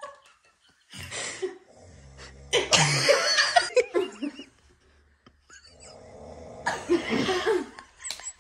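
People laughing in three bursts: briefly about a second in, longer from about two and a half seconds, and again near the end.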